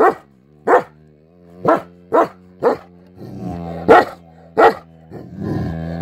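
Two dogs fighting at close range: about seven sharp barks over a long, low growl that swells louder twice in the second half.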